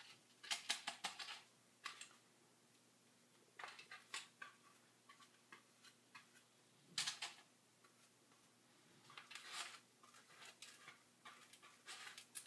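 Faint, scratchy strokes of a paintbrush on a carvable craft pumpkin, coming in short bursts at irregular intervals as the pumpkin is painted and turned in the hand, with one sharper knock about seven seconds in.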